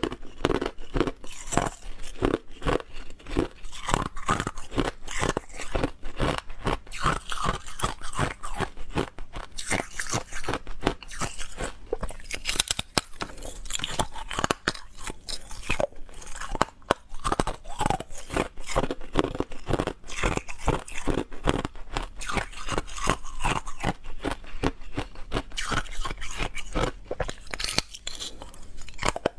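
Hard frozen ice being bitten and chewed: a dense, continuous run of sharp cracking crunches as pieces are bitten off a frosted ice chunk and crushed between the teeth.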